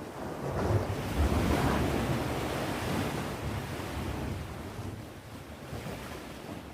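Ocean waves breaking and washing onto the shore, one wave surging about a second in and receding over the next few seconds, with wind rumbling on the microphone.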